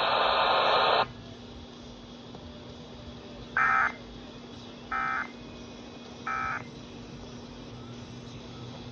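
A second of loud radio hiss that cuts off suddenly, then three short buzzing data bursts about 1.3 seconds apart: the Emergency Alert System end-of-message code (SAME "NNNN") sent by NOAA Weather Radio to close a broadcast warning.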